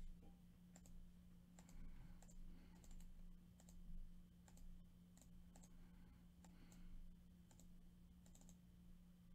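Faint, scattered clicks of a computer mouse and keyboard, some coming in quick pairs, over a low steady hum.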